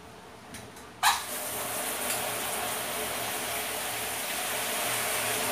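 Handheld shower head turned on about a second in, then water spraying steadily into a plastic basin.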